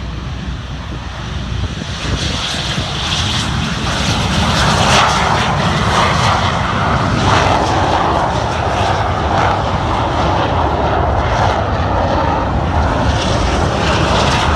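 Several BAE Hawk T1 jets' Rolls-Royce Turbomeca Adour turbofans at takeoff power, a loud, steady roar that grows over the first few seconds and then holds.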